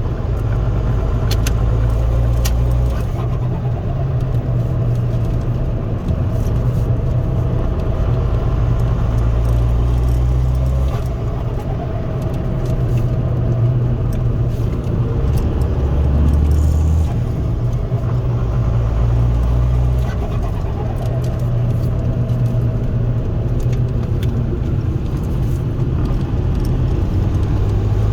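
Cabin sound of a Ford Focus 1.8 TDCi four-cylinder turbodiesel being driven, with a deep engine and road rumble throughout. The engine note rises and falls several times as the car accelerates and changes gear.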